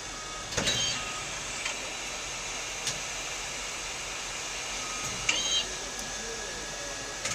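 INDEX MS 32 B CNC multispindle lathe running: a steady machine hum with a high whine. Two loud metallic clanks that ring briefly come about half a second in and about five seconds in, with lighter clicks between.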